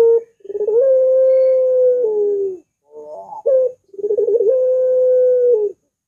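Barbary dove (puter) cooing: two long calls, each a rolling trill that settles into a long held coo, the first ending on a lower note, with a short call between them.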